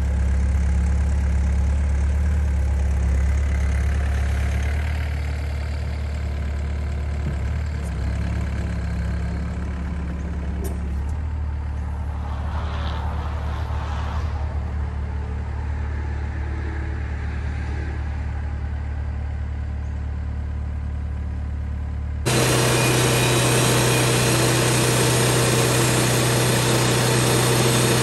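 Engine idling steadily. About 22 seconds in, the sound switches abruptly to an engine running louder and at higher speed.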